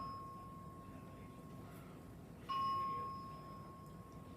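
Hospital fire alarm bell chiming, one ringing strike about every three seconds that starts sharply and fades slowly: one strike comes about two and a half seconds in, with the tail of the one before dying away at the start. It is sounding for a manual pull station that was pulled, a false alarm.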